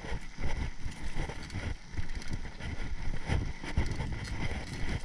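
Mountain bike rolling over a dirt trail, with irregular rattles and knocks from the bike over rough ground and low wind rumble on the microphone.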